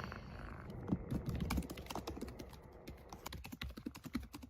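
A quick, irregular run of light clicks and taps.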